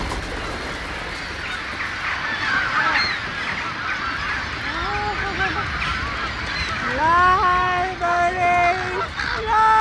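A large flock of birds calling as it flies overhead: a dense mix of short chirps, then long, honking cries, several of them from about seven seconds in.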